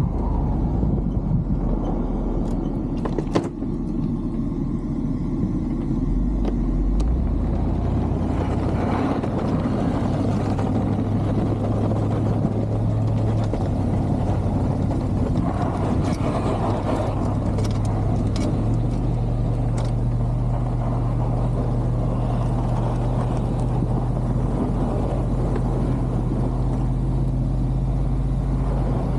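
A 1999 Chevy Suburban's engine runs steadily under load while its straight-blade plow pushes snow, over a constant noisy hiss. The low engine drone steps up in pitch a few times, and there is a single sharp click about three seconds in.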